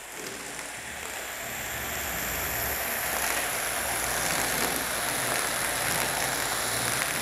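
Garden hose foam gun spraying a stream of soapy foam onto a car's body panels: a steady hiss of water spray and splatter that builds over the first couple of seconds and then holds steady.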